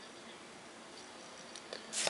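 Baseball trading cards being handled, with faint hiss and a few soft clicks and flicks that become more frequent near the end.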